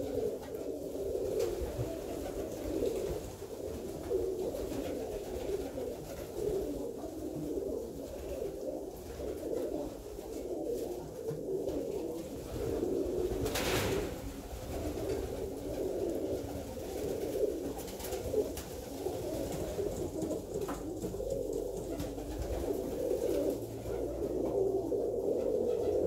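Several Alföldi-Körösi tumbler pigeons cooing at once, their coos overlapping into a continuous low murmur, with a brief rush of noise about halfway through.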